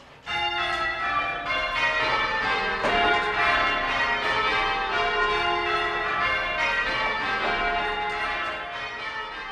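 A ring of English church bells swung full circle by ringers, starting suddenly just after the call to go. Many overlapping strikes ring in quick succession and grow fainter near the end.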